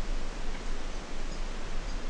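Wind buffeting the microphone outdoors: a steady rushing hiss over an uneven low rumble.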